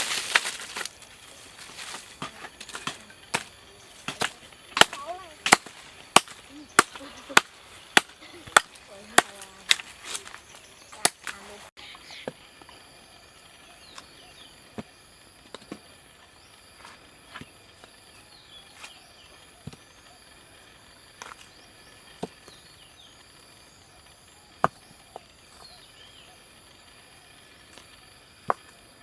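Sharp knocks at a steady pace, about three every two seconds, running for about eleven seconds. After that comes a quieter stretch of birds chirping over a steady high insect buzz, with a few single knocks.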